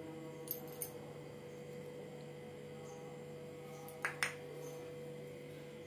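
Quiet steady low hum with a few light clicks: two faint ticks about half a second in, and two sharper clicks close together about four seconds in.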